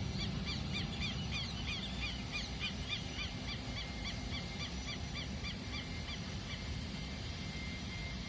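A bird calling over and over, a fast series of short, arched, shrill notes at about three a second that stop about six and a half seconds in, over a steady low rumble.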